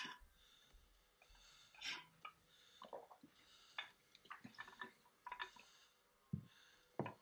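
Near silence broken by faint, scattered small clicks and smacks, sounds of sipping through a straw from a tumbler.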